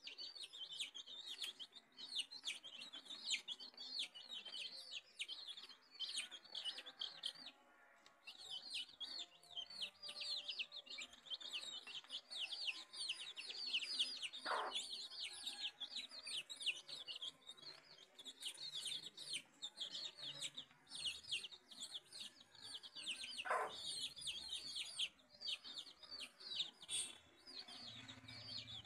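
A brood of domestic chicken chicks peeping without a break: many high, quick, falling chirps overlapping. The mother hen gives two longer calls that fall in pitch, about halfway through and again near the end.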